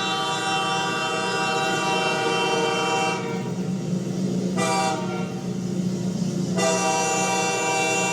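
Diesel locomotive air horn blowing a long blast, a short toot about four and a half seconds in, then another long blast near the end, over the steady low rumble of the moving train.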